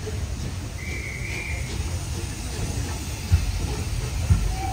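Steam train on the line: a low rumble, with heavy thumps about a second apart coming in during the second half, and a brief high tone about a second in.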